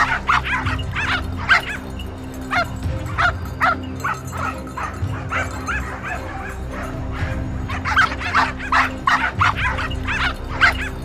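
Hunting dogs barking and yelping in quick, irregular bursts as they worry a freshly shot wild boar, with background music underneath.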